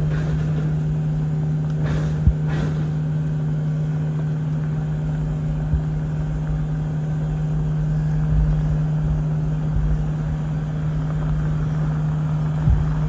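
An engine of the heavy equipment running steadily at a constant speed, with a few brief knocks over it.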